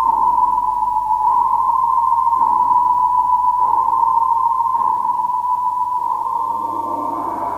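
A steady, high electronic tone, a sustained synthesized sound effect with a slight waver.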